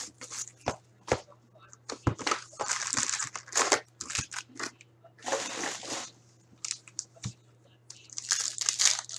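Foil wrappers of hockey card packs crinkling and tearing as packs are ripped open and handled, in irregular bursts, with a few sharp taps. A low steady hum runs underneath.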